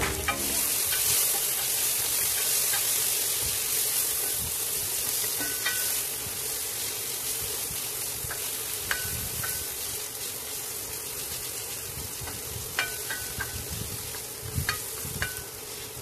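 Onions, tomato and peppers sizzling in hot oil in a pot while being stirred with a spoon. The sizzle eases off somewhat over time. A few short knocks of the spoon against the pot come in the second half.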